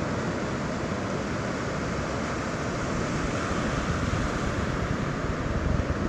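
Surf washing on a sandy beach as a steady rush, with wind buffeting the microphone and growing stronger near the end.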